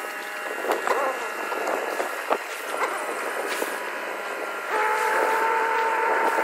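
JCB telehandler's diesel engine running under load as it pushes a wheeled pontoon down a slipway into the water, with a few sharp clanks in the first half. About three-quarters of the way through the engine gets louder, with a stronger whine.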